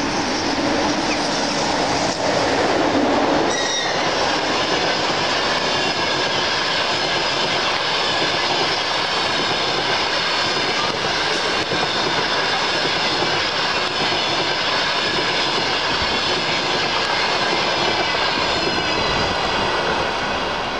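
Passenger train hauled by an EP20 electric locomotive passing close by at speed: a loud steady rush of wheels on rail. A lower tone falls in pitch as the locomotive goes by in the first few seconds. After that the coaches roll past with high, steady ringing tones from the wheels.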